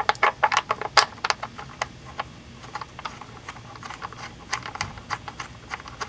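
Quick, irregular metallic clicks and taps as the oil drain plug is threaded back into the oil pan by hand, dense for the first couple of seconds, then sparser.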